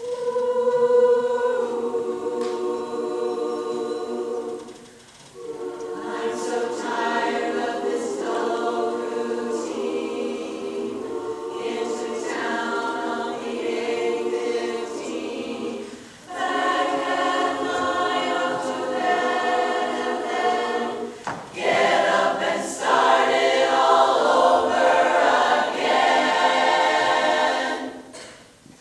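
A women's chorus singing in harmony without accompaniment, in phrases separated by brief pauses.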